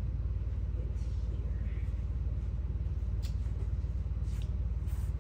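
A steady low machine hum with a fast, even flutter to it. Faint light rustles come about three seconds in and again near the end.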